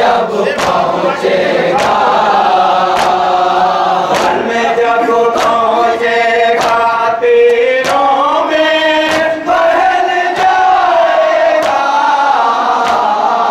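Men's voices chanting a Shia noha in unison, a mourning lament with a gliding melody. Sharp slaps keep a steady beat of about one every 0.6 s, the sound of mourners beating their chests (matam) in time with the chant.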